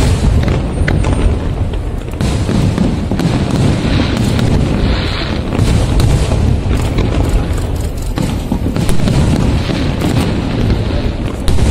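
Fireworks display: aerial shells bursting one after another in a continuous run of booms, with sharp cracks and crackles scattered throughout.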